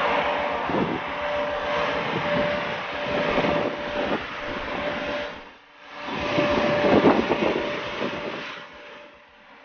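Wind buffeting the microphone in uneven gusts, with a faint steady hum underneath. The noise drops away briefly just past halfway, then returns and fades near the end.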